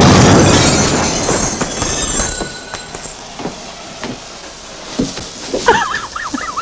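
The aftermath of a small homemade firework exploding: a loud rushing blast that dies away over about two and a half seconds, followed by scattered knocks and clatters. A few short warbling squeaks come near the end.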